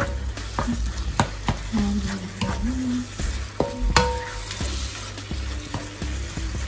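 Minced meat and tomatoes sizzling in a nonstick pan as a spatula stirs and scrapes through them, with irregular sharp clicks of the spatula knocking against the pan.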